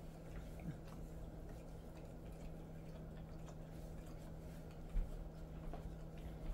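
Jindo dog licking and grooming his own fur and belly: soft, wet licking ticks that come and go. There is a short low thump about five seconds in, over a steady low hum.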